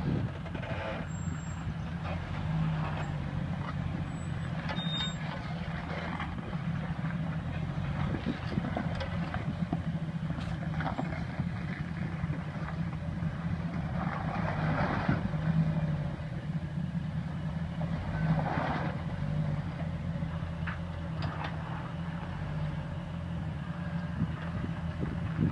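Jeep Wrangler engine running steadily at low revs as the vehicle crawls over rocks, with a low, even engine note.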